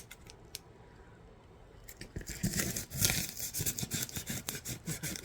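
The packing tape on a cardboard shipping box being cut open: a few light clicks, then from about two seconds in a run of rapid scraping and rasping strokes as the blade works through the tape and cardboard.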